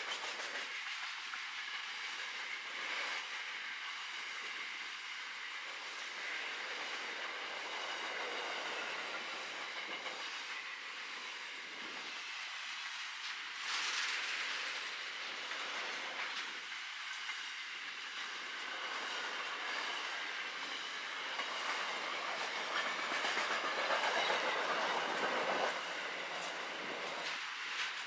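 Wagons of a long container freight train rolling past close by: the steady noise of steel wheels on rail, with faint high ringing tones. It swells louder briefly about halfway and again for a few seconds near the end.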